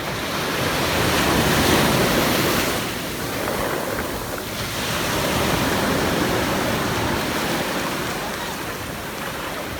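Stormy sea surf: waves breaking and washing onto the shore, swelling loudest about two seconds in and again around six seconds in. Wind buffets the microphone.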